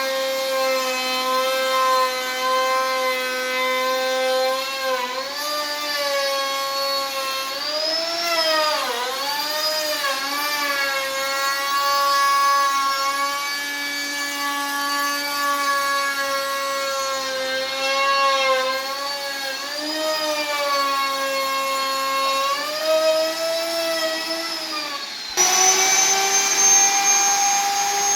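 Electric power tool cutting wood: a steady motor whine whose pitch sags several times as the blade bites and the motor slows under load, then recovers. Near the end the sound switches abruptly to a higher, steadier whine.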